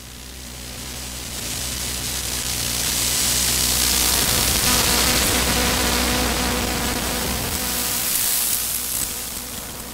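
Electromagnetic emissions from an Asus laptop's electronics, picked up by a bare loudspeaker coil used as an inductive pickup: a dense static hiss over a steady low hum and a few fixed tones. It swells louder toward the middle and fades near the end as the coil is moved over the keyboard.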